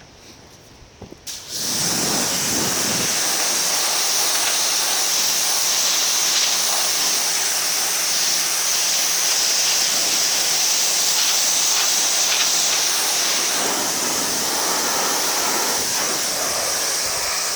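Bloom NXG2200 2200 psi electric pressure washer kicking on about a second and a half in when the trigger is pulled, then spraying steadily. The water jet makes a loud hiss over the low hum of its motor.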